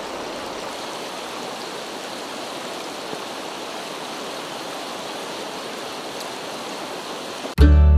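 Mountain stream flowing over rocks, a steady even rush of water. Near the end, loud acoustic guitar music cuts in suddenly.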